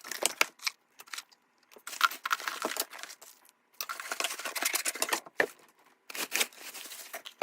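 Packaging being torn and crinkled as a new box is opened, in four rustling stretches with short pauses between them.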